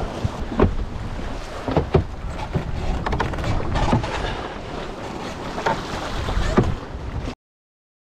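Strong wind of about 14–15 m/s rushing over the microphone aboard a sailing yacht, with waves splashing against the hull in several sharp slaps. The sound cuts off abruptly near the end.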